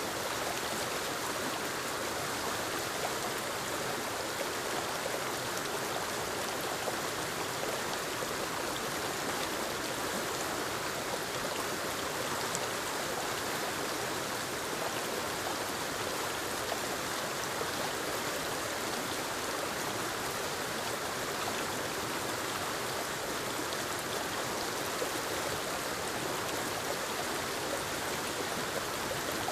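Forest waterfall tumbling over rocks into a stream: a steady, unbroken rush of falling and running water.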